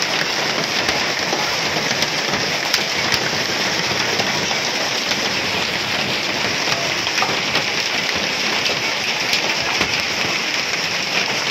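Hailstorm with heavy rain pelting the ground: a steady dense hiss of rain, with many sharp ticks of hailstones striking.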